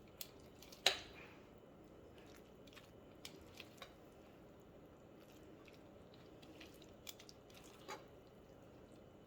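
Scattered light clicks and taps of a serving utensil against cookware as stir-fried noodles are dished out, with one sharper clink about a second in.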